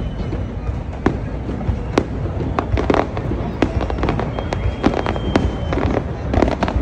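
Aerial fireworks shells bursting in an irregular run of sharp bangs and crackles, thickest about three seconds in and again near the end.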